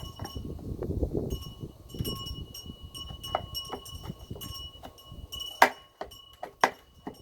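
A screwdriver prying at a generator's metal casing: scraping and handling noise with scattered clicks, then two sharp metallic clanks about a second apart near the end.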